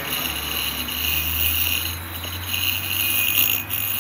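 Ultrasonic dental scaler handpiece running at power setting 20 with its tip in a glass of water: a high-pitched buzzing hiss over a low hum. It swells and dips as the tip moves in the water, and drops briefly near the end.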